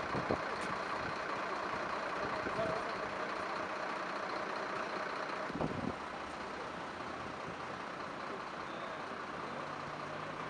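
Steady street traffic noise with vehicle engines running; a low engine hum comes in near the end.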